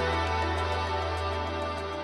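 Background music: a held low bass note under sustained chords, slowly getting quieter.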